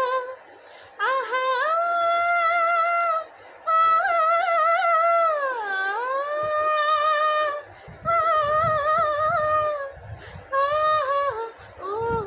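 A woman singing unaccompanied in long held notes with wavering, ornamented pitch, including a slow swoop down and back up in the middle, broken by short pauses for breath.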